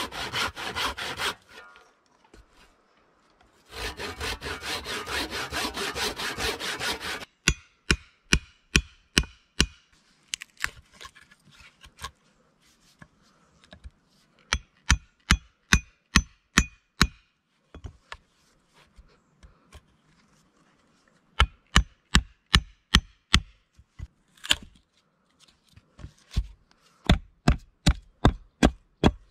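Hand saw cutting through a log in quick strokes, in two spells over the first seven seconds. After that come groups of sharp wooden knocks, about two or three a second, as a notch is chopped into the log end.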